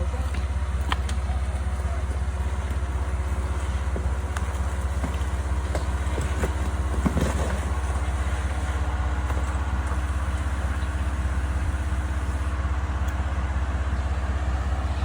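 Off-road vehicle engine running steadily at low revs, a constant low rumble, with a few faint knocks.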